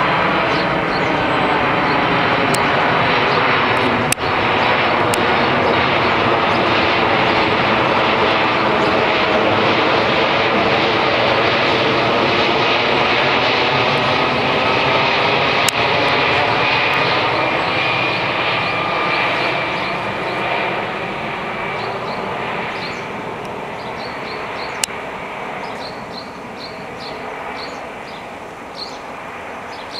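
Air Force One, a four-engined Boeing 747 jet, passing low overhead on its landing approach: a loud, steady jet roar with a slowly sweeping, phasing tone and a high whine coming through midway. The roar fades over the last third as the plane moves away.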